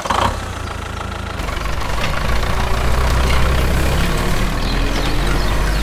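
Tractor engine running steadily at a low pitch, coming in suddenly as the music stops.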